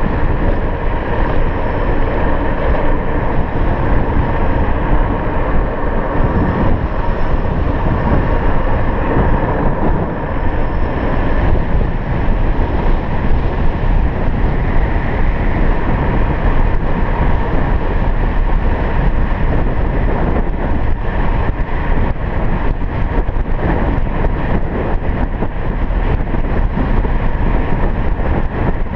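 Steady wind rush on the microphone and tyre noise from an electric scooter riding at road speed, with no engine sound and a faint steady hum underneath.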